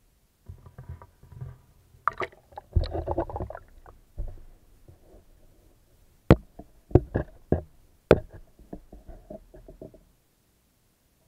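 Handling noise from a camera being lowered into a fish tank's water: bumps, scrapes and water sloshing, then a run of sharp knocks against the camera about six to eight seconds in.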